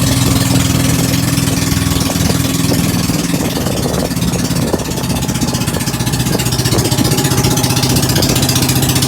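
Boat engine running steadily at a constant speed, loud and even.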